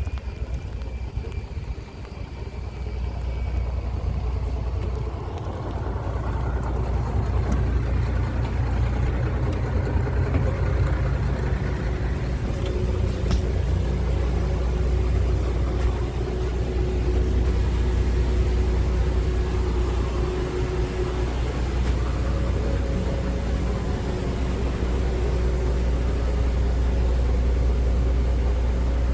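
Steady low rumble of a vehicle under way, building up over the first few seconds and then holding even.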